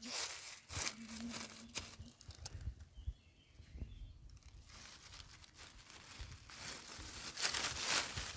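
Dry fallen oak leaves rustling and crackling in irregular bursts, with a quieter spell in the middle and the loudest crackle near the end as a hand pushes in among the leaves.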